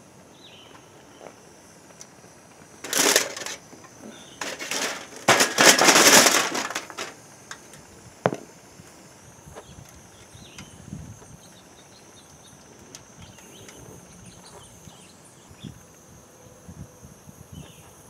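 Two bursts of crunching, scraping noise, a short one about three seconds in and a longer one from about four and a half to seven seconds, followed by a single sharp click.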